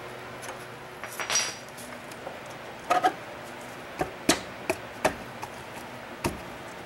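An irregular series of sharp metal knocks and clinks as a new steel pivot pin is worked into the front axle of a Ford 8N tractor, the pin and axle being wiggled and tapped to line up in the tight new bushing.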